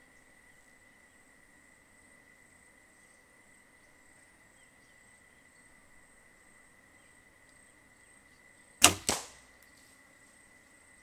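Bow shot at a billy goat: two sharp cracks about a third of a second apart, about nine seconds in, the bow's release and the arrow striking the goat at 17 yards. The stretch before the shot is quiet.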